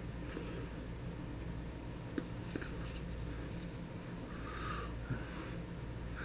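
Quiet room tone: a steady low hum, with a few faint clicks and soft breathy rustles in the middle.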